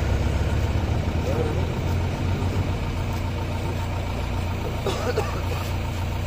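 An engine idling steadily with a low, even rumble, with faint voices talking in the background.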